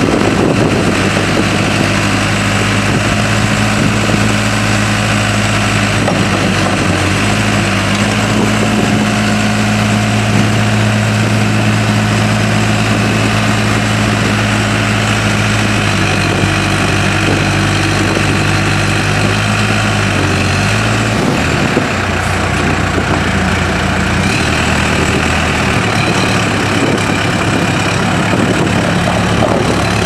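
Case 580M Series II backhoe's four-cylinder diesel engine running steadily, its speed stepping up and down a few times as the machine is worked.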